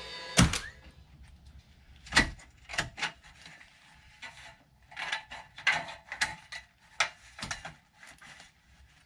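A string of irregular knocks and clunks from building work on the roof, the loudest about half a second and two seconds in, with a quicker cluster between five and eight seconds.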